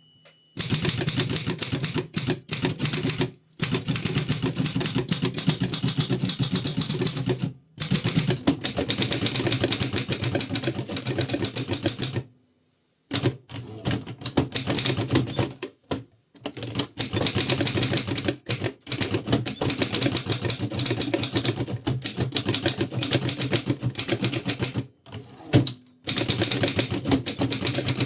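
1933 Continental Standard manual typewriter being typed on quickly: a dense run of key strikes, broken a few times by brief sudden silences.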